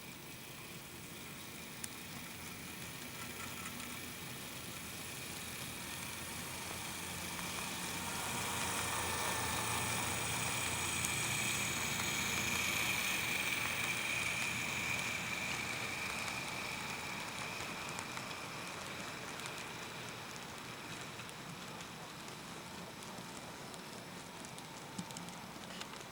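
N scale model train running along the track, a steady whirring motor and wheel noise with a faint high whine that grows louder as it passes closest, about halfway through, then fades away.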